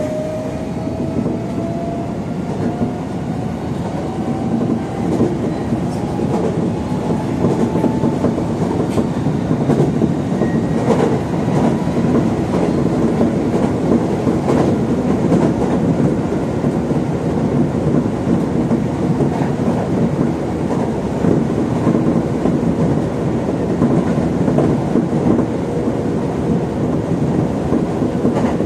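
Tobu 70000 series electric train running, heard from inside the front cab. Its traction motors whine up in pitch as the train accelerates over the first several seconds, under steady wheel-on-rail running noise, with a few sharp clicks from the track.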